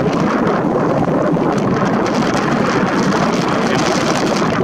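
Strong wind blowing across the microphone: a steady, loud rushing noise without a break.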